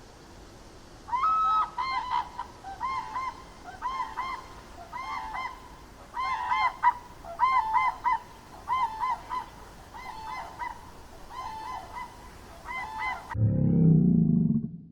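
Geese honking: repeated short, nasal calls, about two a second. Near the end they cut off and a louder, low rumbling sound begins abruptly.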